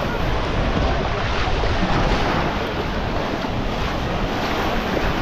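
Baltic Sea surf washing onto a sandy beach, a steady rushing noise, with wind buffeting the microphone.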